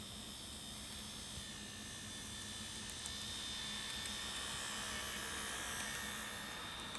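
N gauge model electric train running past on its track: a thin high motor whine over a low hum that grows louder as the train comes close, then eases as it goes by.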